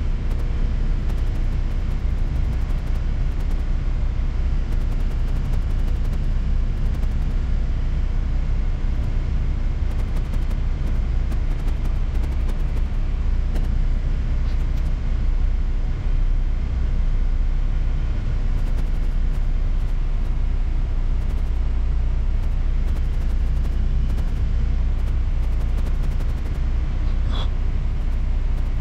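A 60-foot motor yacht's twin engines running steadily at low harbour speed: a low, even hum heard from the helm.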